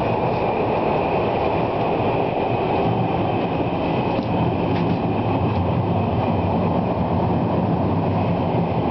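Shanghai Metro train running between stations, heard from inside the car: a steady rumble of wheels on track, with a thin steady high whine over it.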